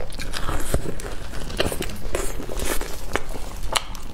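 Close-miked chewing and mouth sounds from eating a sugar-dusted, cream-filled bun, with irregular clicks and crackles.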